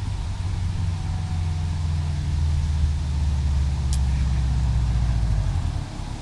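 2013 Subaru WRX's turbocharged flat-four running through a CNT cat-back exhaust as the car drives up at steady revs: a low rumble that grows louder as it approaches, then falls away about six seconds in as it passes.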